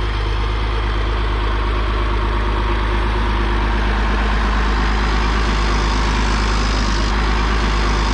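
Tractor engine idling steadily, a low even hum that does not change.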